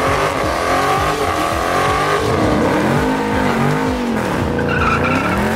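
Drag-racing muscle car doing a burnout: its engine revs up and down in repeated swells while the spinning rear tyres squeal.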